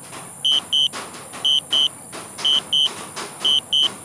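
DJI drone remote controller's return-to-home alert: pairs of short high beeps, about one pair a second, four pairs in all.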